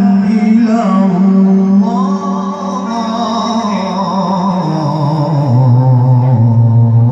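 Male qari reciting the Quran in melodic tilawah style, amplified through a microphone and loudspeakers. He holds long ornamented notes that waver in pitch, then drops to a low held note about five and a half seconds in.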